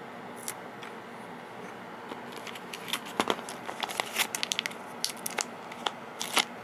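Plastic LEGO pieces being handled and fitted together: a run of sharp, irregular clicks and rattles that starts about two seconds in.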